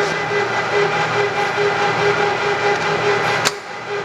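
Clausing Colchester 17 x 60 inch lathe running under power at 666 RPM in the high range: a steady gear whine from the headstock over a mechanical hum, the gears running fine. A sharp click about three and a half seconds in, after which the sound briefly drops before coming back.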